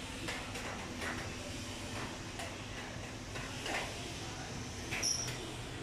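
Background workshop noise: a steady low hum with occasional soft clicks and rustles.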